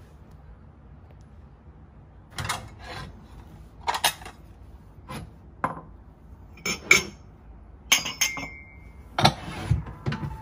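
Ceramic plates and bowls clinking and knocking against each other as they are lifted out and set back down, about a dozen separate clinks, one ringing on briefly.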